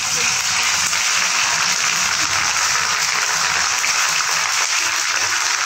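Sliced onions and onion paste sizzling in hot mustard oil in a kadai, stirred with a spatula; a loud, steady frying hiss.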